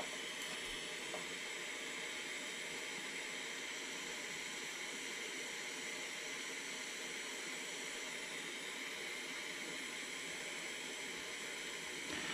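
Steady hiss of a lit Lexivon LX-770 butane soldering iron burning its gas.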